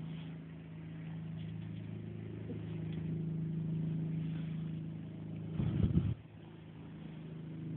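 Kitten purring right against the microphone: a steady low hum with a fast pulsing flutter that swells slightly midway. A brief scuffle of handling noise interrupts it about five and a half seconds in, and the purring picks up again near the end.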